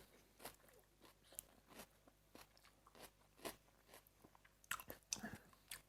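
Blue swimming crab being broken apart by hand and chewed: quiet, irregular crunches and clicks of the shell, a little busier near the end.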